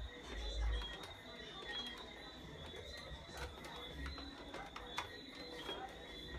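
Scattered light clicks and taps from small mechanical parts being handled, with a few low thumps near the start.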